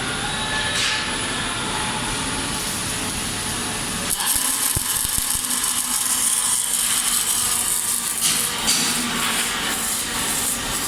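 OTC Daihen robotic welding cell in operation: a steady machine hum, then, about four seconds in, a louder hissing crackle sets in and carries on, as an arc-welding torch at work would sound.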